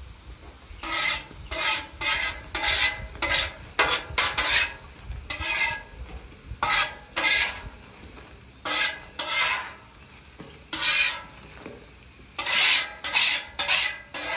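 Metal spatula scraping and clattering across a Camp Chef Gridiron steel griddle top as it tosses and pushes frying steak fries, in quick runs of short strokes with brief pauses. The fries sizzle lightly underneath.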